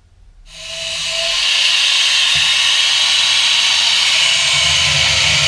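Hand-held angle grinder with a cutting disc switched on about half a second in, winding up to full speed over about a second and then running steadily.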